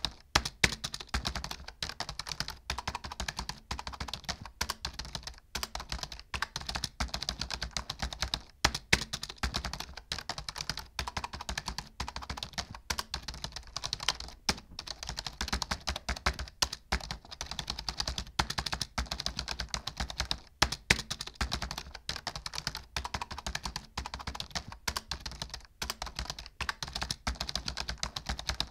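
Fast, continuous typing on a computer keyboard: a steady stream of key clicks, with a few louder keystrokes standing out now and then.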